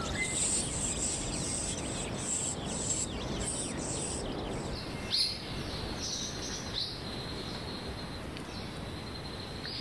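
Forest ambience with small birds chirping: a steady background hiss carries short high-pitched pulses about once a second over the first few seconds, then a few quick falling chirps about five and seven seconds in.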